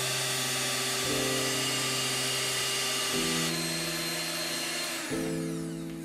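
Electric hand mixer whirring steadily as its wire beaters whip eggs and sugar to a pale, thick foam for a sponge cake, dying away near the end as the beaters lift out of the batter. Soft background music with held chords plays underneath.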